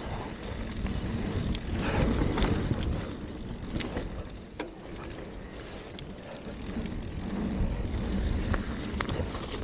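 Mountain bike rolling fast downhill on a dirt trail strewn with dry leaves: a steady rough rumble of tyres on dirt and leaves, mixed with wind buffeting the camera microphone. It swells at times and has a few sharp clicks from the bike.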